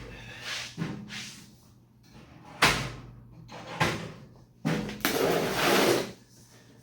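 Tool box being handled: a couple of sharp bangs and slams about two and a half and four seconds in, then a longer sliding, rattling stretch near the end, like a door or drawer being worked and its contents shifted.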